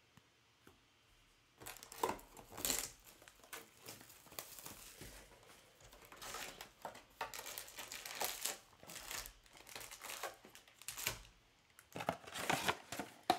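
Trading-card pack wrappers being torn open and crinkled by hand, an irregular run of crackling that starts about a second and a half in.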